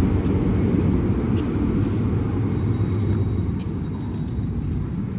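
Steady low rumble of vehicle traffic, with a faint high whine joining about halfway through.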